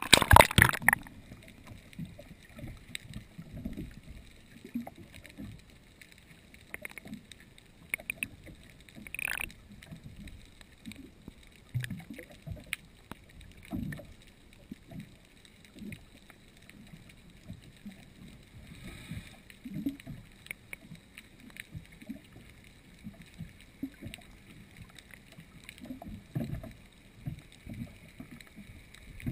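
Camera plunging into seawater with a splash, then underwater sound: irregular low knocks and thumps, with a faint steady high tone throughout.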